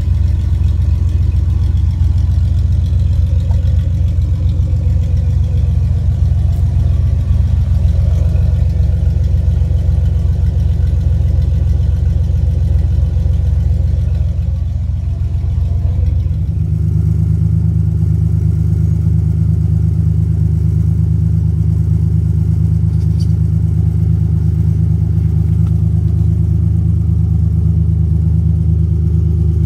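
Exhaust of a 4.3-litre V6 pickup truck running steadily, first through its old muffler and then, after an abrupt change about sixteen seconds in, through a Wicked Flow one-in, two-out muffler. The exhaust tone changes at the switch.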